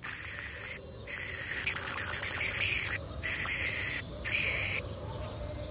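Aerosol can spraying white cream into a wafer cone in four hissing bursts, each starting and stopping sharply, with short gaps between them.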